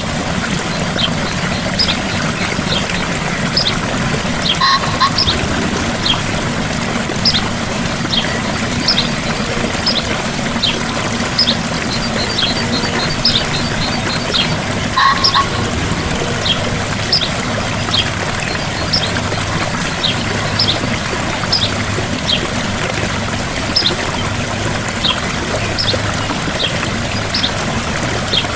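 Gentle waterfall, a steady rush of falling water. Over it come short high chirps about once a second, with a brief rapid trill near the middle.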